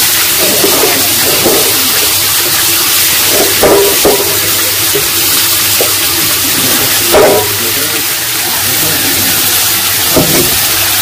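Steady loud hiss of wild mushrooms frying in a wok over a lit gas burner. Water splashes a few times, around four seconds in, at about seven seconds and near the end, as a hand moves through a steel pot of water.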